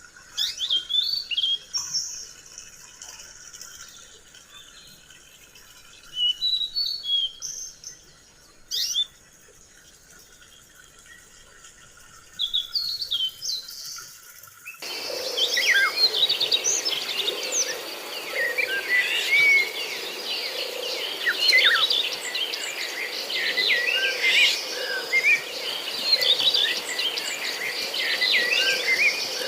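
Songbirds chirping: scattered short calls and whistles at first, then about halfway a sudden change to a dense chorus of many birds calling over each other.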